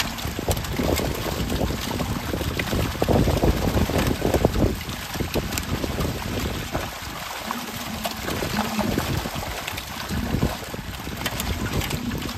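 Many live fish thrashing and splashing in shallow water crowded inside a net, with irregular splashes and water sloshing, busiest in the first half.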